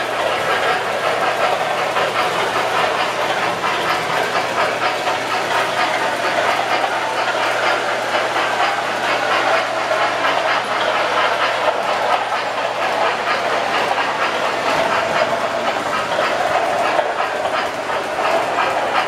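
MTH Premier O-gauge model of a Pennsylvania Railroad Mikado steam locomotive and its passenger cars running on three-rail track, a steady rumble of wheels with a fast rhythmic clatter.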